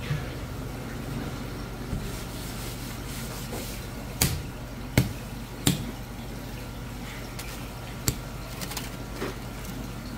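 Steady low hum of shop equipment with four sharp knocks from fish-cutting work, the loudest about four, five, six and eight seconds in.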